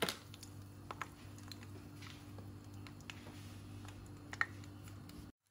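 Faint, scattered pops and ticks from whole crushed garlic cloves starting to fry in hot oil in a wok, over a low steady hum. The sound cuts off suddenly near the end.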